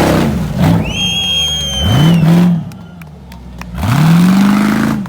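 Off-road vehicle engine revved hard twice, its pitch sweeping up each time before it backs off. A high thin whine comes through during the first part.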